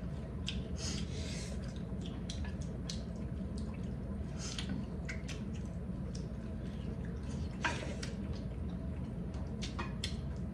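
Eating sounds from a mukbang meal of chicken soup, meat and rice: scattered soft, wet clicks and smacks of chewing and mouth noises, over a steady low hum.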